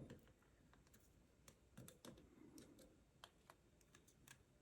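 Faint, scattered small clicks of pliers working the nut and bolt of an MMCX socket against near silence.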